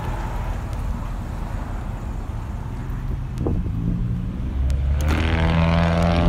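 A road vehicle's engine drawing near and getting louder over the last couple of seconds, over a steady low rumble of street traffic.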